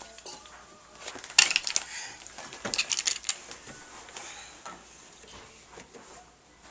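Plastic toy kitchen pieces knocking and clicking as a toddler handles them: a sharp knock about a second and a half in, a quick run of clicks around three seconds, then a few lighter taps.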